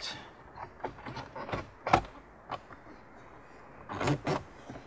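Plastic dashboard trim on an Audi S4 being pressed and worked into place around the instrument cluster: scattered light clicks and creaks of the panel, with a sharper knock about two seconds in and a couple of louder knocks near the end.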